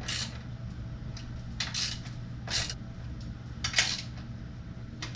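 Scattered light metallic clinks and clatters, about six over five seconds, over a steady low hum.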